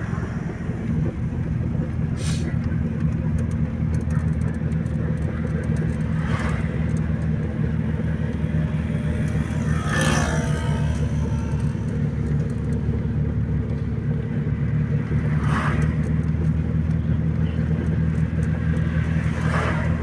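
Steady engine and road noise of a car driving, heard from inside the cabin as a low hum. A few brief louder swishes pass over it, the strongest about halfway through.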